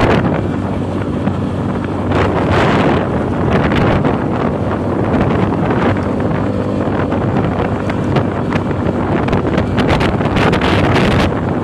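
Strong wind buffeting the microphone in loud, gusty rushes while moving along the road, with a vehicle engine humming faintly beneath it.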